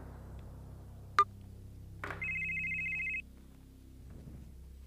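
Smartphone ringing with a trilling two-tone ring, one burst of about a second about two seconds in. A short, sharp click, the loudest sound, comes about a second in.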